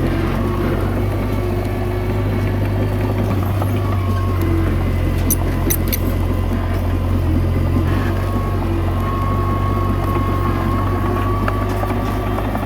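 Komatsu D21A bulldozer's diesel engine running steadily under load, with a thin whine coming and going above it and a few brief clicks about halfway through.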